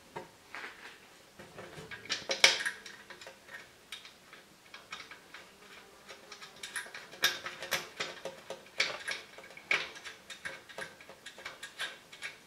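Irregular small metallic clicks and taps from screws being turned by hand and the steel belt guard being handled on the bandsaw. The loudest cluster comes about two and a half seconds in, with a busier run of clicks later on.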